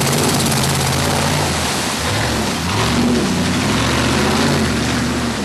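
Off-road Jeep's engine working under load as it crawls across a rocky riverbed, its note dipping and rising again about halfway through.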